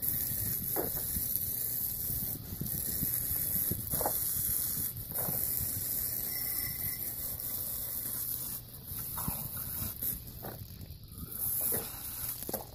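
Garden hose spray nozzle spraying water onto a bicycle's frame and wheel: a steady hiss of spray with brief splatters as the jet hits the bike, unsteady in the last few seconds.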